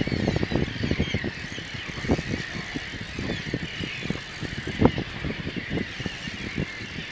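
Fishing reel working under load while a hooked tarpon is fought: a busy run of irregular mechanical clicks and rattles, with one sharper knock about five seconds in.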